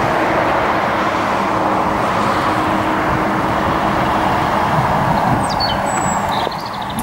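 Road traffic passing close by: a steady rush of car tyres and engines that eases off about six and a half seconds in. A few short bird chirps near the end.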